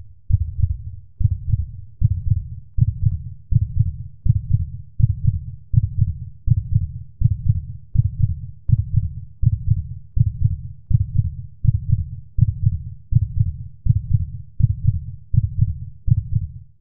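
Heartbeat sound effect: low, evenly spaced beats, a little more than one a second.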